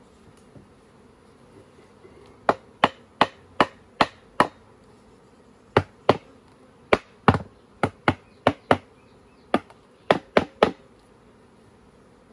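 A run of about eighteen sharp knocks on the wooden lid of a log beehive, starting about two and a half seconds in and coming in irregular groups, as the lid is tapped down onto the log. Bees buzz faintly underneath.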